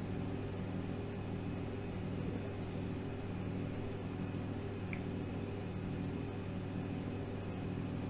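Room tone: a steady low hum with faint hiss, unchanging throughout, with no distinct handling sounds.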